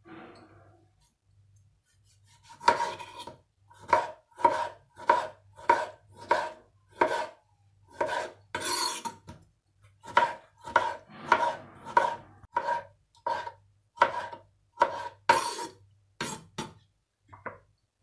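Kitchen knife slicing tomatoes on a wooden cutting board: a steady run of sharp knocks, about two a second, starting a couple of seconds in. One longer scraping stroke comes about halfway through.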